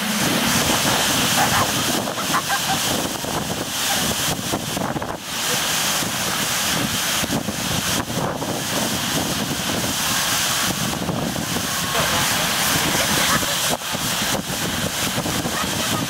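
Strong, gusty wind ahead of an approaching typhoon, blowing across the microphone as a loud, even rush of noise that keeps swelling and dipping.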